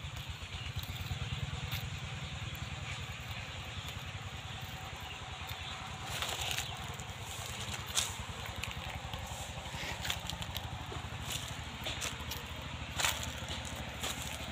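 A small engine running steadily in the background, with a few short scrapes and crunches as a hand-held punch is pushed through plastic mulch film into the soil to make seed holes.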